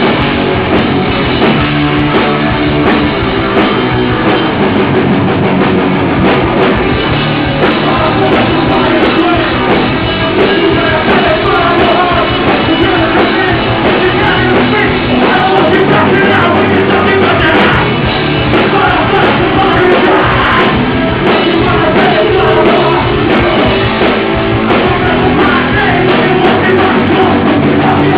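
Hardcore punk band playing live: loud distorted electric guitars, bass and drum kit, with vocals over the top.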